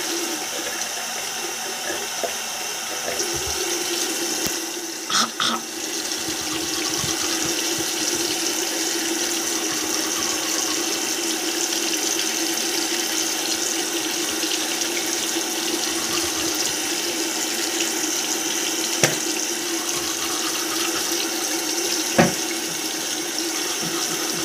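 Bathroom sink tap running steadily. There is a short clatter about five seconds in and two sharp knocks near the end.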